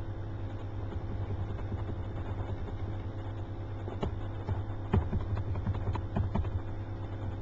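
Steady low electrical hum with a few faint fixed tones above it, broken in the second half by several short sharp clicks: computer mouse clicks while stepping through swing videos in analysis software.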